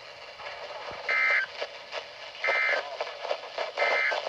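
Three short bursts of EAS digital data tones (SAME), each a harsh warbling buzz about a third of a second long and a little over a second apart: the end-of-message signal that closes a NOAA Weather Radio alert.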